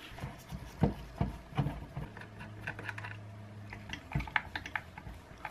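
Irregular clicks and light knocks of a screwdriver and hard plastic parts as a belt sander's plastic housing is unscrewed and taken apart.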